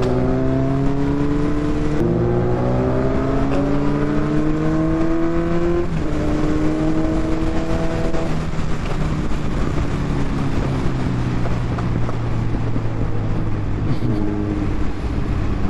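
Kawasaki Z900's inline-four engine heard from the rider's seat, pulling up through the gears: the pitch climbs, drops at two upshifts, and climbs again. About eight seconds in the throttle eases and the engine settles into a steady cruise under wind rush.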